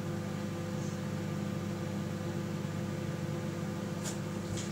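Microwave oven running partway through a 40-second cook, a steady hum.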